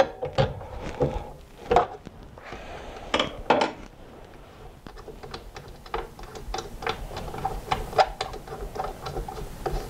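Metal clicks and clinks from loosening and unthreading the arbor bolt and washer on a miter saw's blade arbor: a few sharp knocks in the first four seconds, then a run of quick light ticks for the rest of the time.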